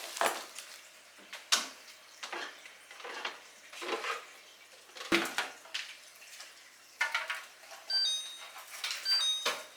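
Kitchen containers and dishes clattering and knocking as they are handled, in irregular separate knocks. Near the end a few short high electronic beeps sound about a second apart.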